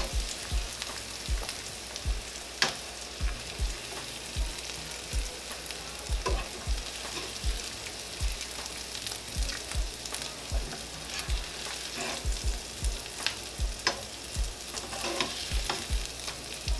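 Onions, bell peppers and mushrooms sizzling steadily in butter in a frying pan while metal tongs pick them out, with irregular clicks and low knocks of the tongs against the pan.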